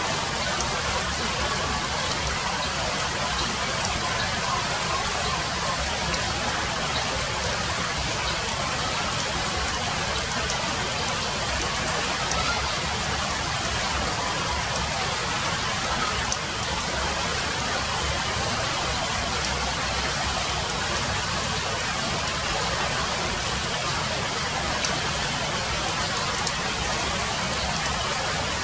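Light rain falling on broad leaves: a steady, even hiss with a few faint ticks.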